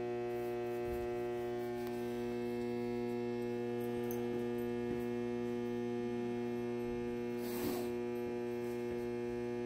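A steady electrical hum with a stack of evenly spaced overtones, unchanging throughout, with a few faint scuffs, one a little louder near the end.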